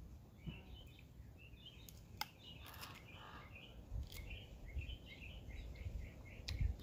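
Small birds chirping over and over, with a few sharp clicks and cracks of crab shell being broken and picked apart by hand.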